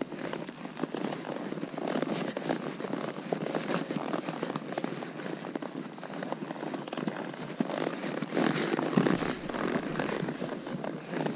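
Horse hooves clattering and scraping on loose rock and dirt as the horses climb a steep trail: a busy, irregular crackle of knocks and clicks.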